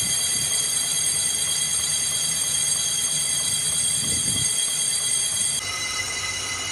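Metal lathe running and taking a cut on a cast-iron brake disc, with a steady high-pitched squeal of several tones over a low rumble. About five and a half seconds in, the sound drops a little and its pitches shift suddenly.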